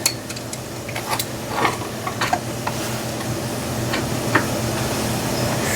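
Light metallic clicks and knocks of sockets and a long extension being handled and fitted to an impact wrench, scattered over a steady background hum.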